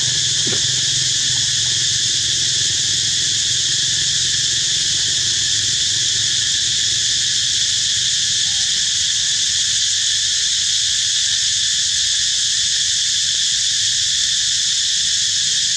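Steady, unbroken high-pitched insect chorus, with a low steady rumble underneath.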